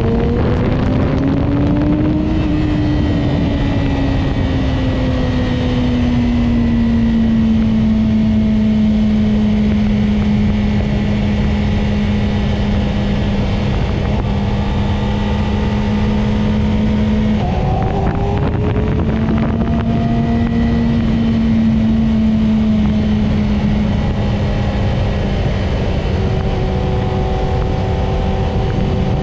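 Yamaha YZF-R6's inline-four engine running at a steady cruise, its note rising over the first couple of seconds and then easing slowly down, with a short break and change in the note about two-thirds of the way through. Wind rushes over the microphone.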